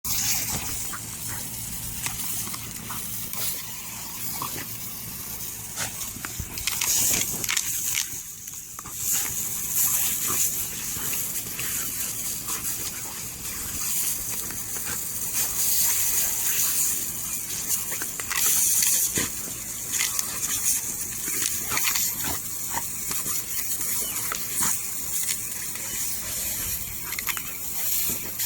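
Lawn sprinkler spraying water: a steady hiss of spray with frequent short clicks and spatters.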